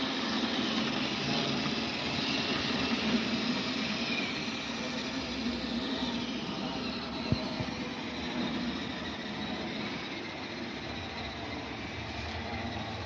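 HO scale model passenger train running on the layout: a steady whir from the locomotive's motor and the wheels rolling over the track, with one sharp click about seven seconds in.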